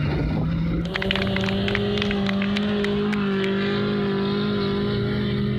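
Off-road rally 4x4's engine running at high, steady revs as it drives through sand, with a cluster of sharp clicks over the first couple of seconds.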